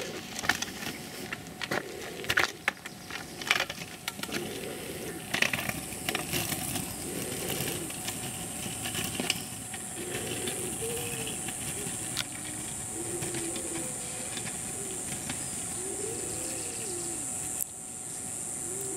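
Footsteps and a kick scooter's small wheels crunching and rolling over a gravel road, with irregular crunches and clicks in the first half and a steadier rolling hiss after.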